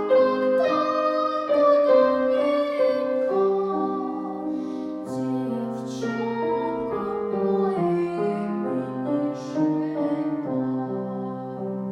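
Music: a girl's voice singing a slow song over a piano-led accompaniment, with long held notes.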